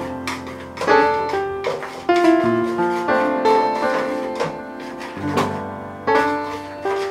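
Background piano music, notes struck one after another in a light, steady melody.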